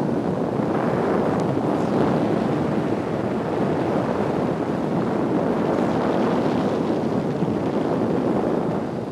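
Steady rush of wind and slipstream over the microphone in a de Havilland Tiger Moth's open cockpit as the biplane sideslips down on final approach.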